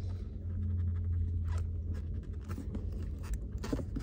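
Short, faint scrapes and clicks of hands pushing a plastic air line into a push-in air fitting, a few of them in the second half, over a steady low hum.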